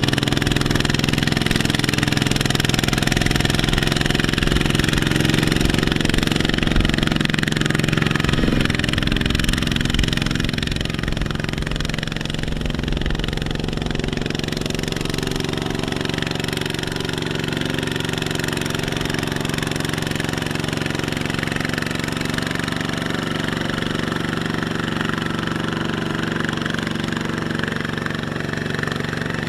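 Two-wheel walking tractor's diesel engine running steadily under load as it drags a loaded rice trailer through mud, easing slightly about ten seconds in.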